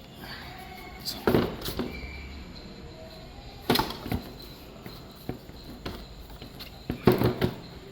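Three short bursts of sharp knocks and clicks, a few seconds apart, as motorcycle parts and panels are handled and fitted back on after the air filter is cleaned.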